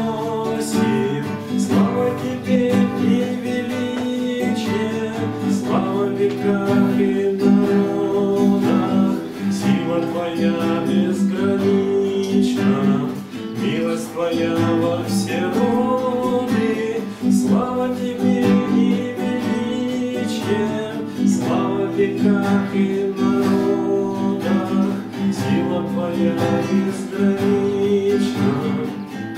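Nylon-string classical guitar strummed in a steady rhythm while a man sings a Russian Christian song along with it.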